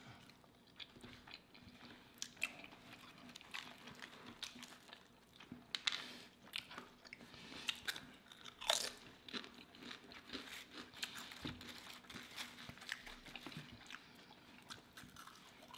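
Close-miked eating: crisp potato-chip crunches, sandwich bites and chewing from two people, quiet and irregular.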